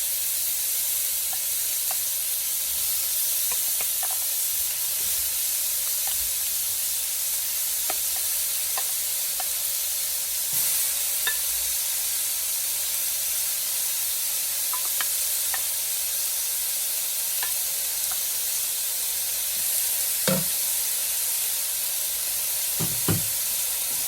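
Pieces of pork belly sizzling in a hot pan as their fat renders out: a steady frying hiss with scattered small crackles. A couple of brief knocks come near the end.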